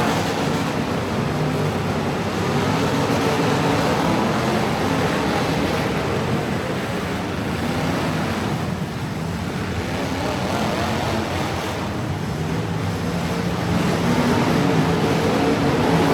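Truck engine running hard, its pitch rising and falling, over a broad rushing noise; it eases off around the middle and climbs again near the end.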